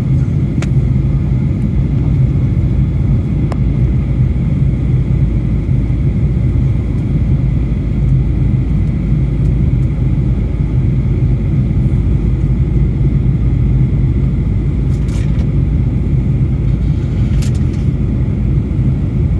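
Steady low rumble of engine and airflow noise inside the cabin of a Boeing 737-800/900 airliner, heard from a passenger seat. Two faint brief ticks come near the end.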